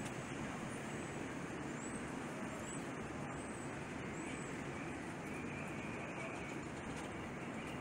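Steady low hum of distant road traffic, with a few faint high chirps in the first few seconds.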